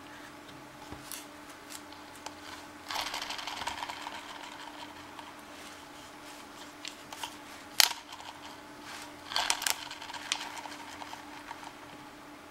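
Plastic toy helicopter being handled, its plastic parts clicking and rattling. There is a rustling stretch about three seconds in, a sharp click near eight seconds and a quick run of clicks soon after, over a faint steady hum.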